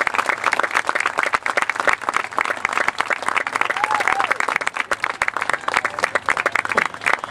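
Crowd applauding steadily, with dense rapid clapping throughout and a few voices calling out over it.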